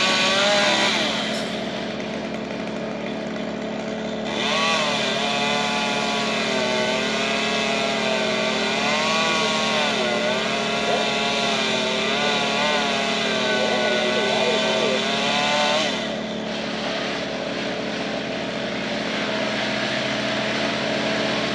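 Gasoline chainsaw cutting a dead tree from high up. Its engine revs high with the pitch rising and falling as it works, briefly at the start and again from about four to sixteen seconds in, and drops to a lower, steadier run in between and after. A steady engine drone runs underneath.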